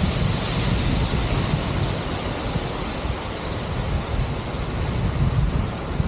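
Wind rushing over the camera microphone of a paraglider in flight: a steady hiss with a low, uneven buffeting rumble.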